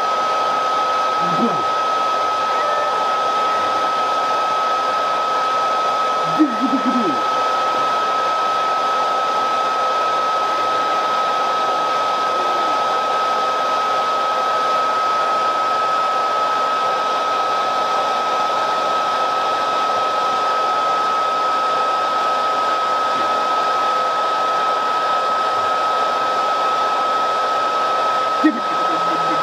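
Hair dryer running steadily, a loud constant buzzing with a steady high whine over the rush of air.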